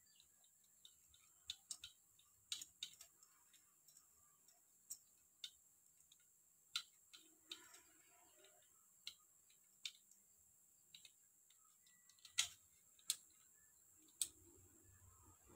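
Scattered light clicks and taps, about a dozen at irregular intervals with a few sharper ones near the end, from hands and tools working on parts in a car's engine bay while the engine is off. Between them it is near silence, with a faint rustle about halfway through.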